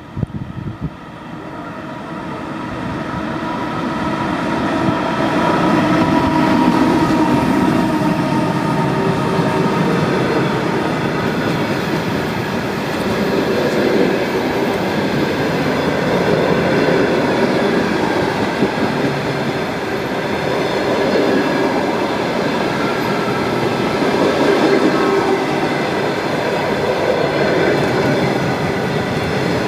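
A train passing close by on the line: its rolling noise swells over the first few seconds, then holds loud and steady.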